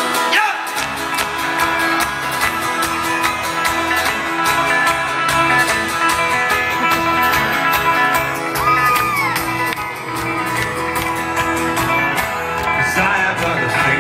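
Folk-rock band playing an instrumental passage live: fast strummed acoustic strings over a steady, driving beat.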